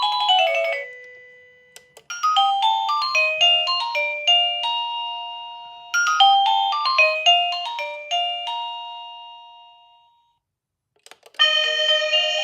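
Wireless doorbell chime unit playing its electronic melody tunes: a fast run of notes up and down dies away, then after a click a short bell-like tune plays twice over and fades out. Near the end another click is followed by the next tune starting.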